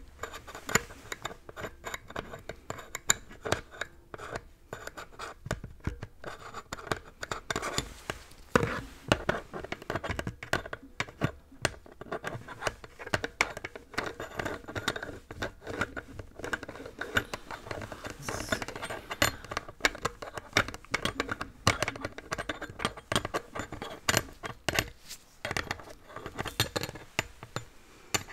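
Close-miked ASMR trigger sounds: hands and tools scratching, scraping and tapping right at the microphone, an unbroken run of irregular clicks and scratchy strokes.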